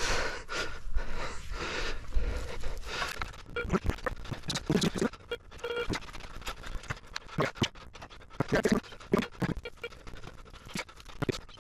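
A spade digging and scraping in wet, sticky field soil to recover a metal-detector target, with the digger breathing hard.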